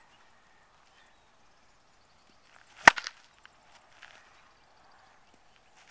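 Wooden baseball bat striking a tossed baseball once, a sharp crack about three seconds in, followed by a couple of smaller knocks.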